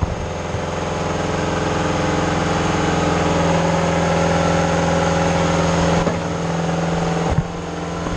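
Engine of a Mayco trailer concrete pump running steadily at raised speed, driving the hydraulics, with a couple of brief knocks near the end.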